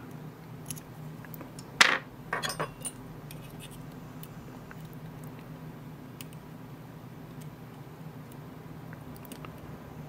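Metal lock-picking tools clinking: one sharp clink about two seconds in, then a quick run of lighter clinks, then only faint ticks over a low steady hum.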